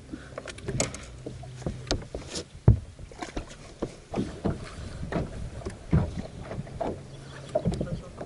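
Irregular knocks, taps and small splashes aboard a fishing boat, as of water lapping at the hull and gear being handled, with a faint low steady hum early on.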